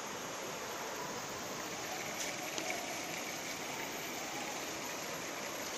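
Steady, even rushing of Tinago Falls waterfall, with a few faint clicks.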